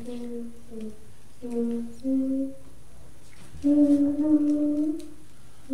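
A young child singing a gospel song solo and unaccompanied, in short held notes with gaps between phrases. The last phrase has one long note that rises slightly near the end.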